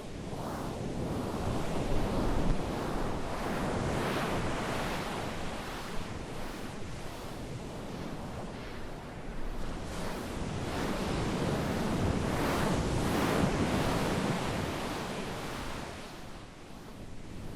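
A rushing, surf-like noise that swells and fades in slow waves without any steady tone, dipping near the end.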